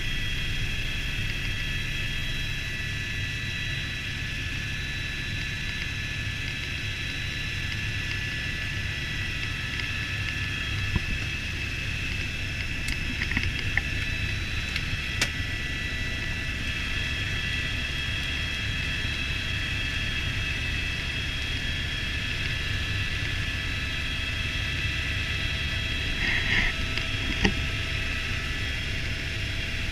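Helicopter in flight heard from inside the cockpit: a steady high turbine whine over the low rumble of the rotor. A few light clicks sound partway through and near the end.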